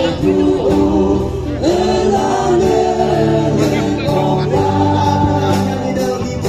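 A choir singing a gospel song with a live band: long sung notes over a steady bass line and a regular percussion beat.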